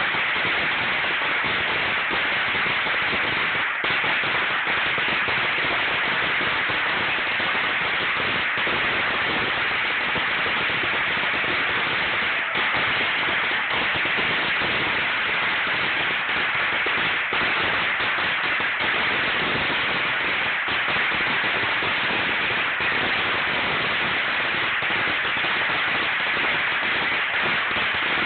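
A 16,000-count string of firecrackers going off in a dense, unbroken crackle that holds at an even loudness throughout.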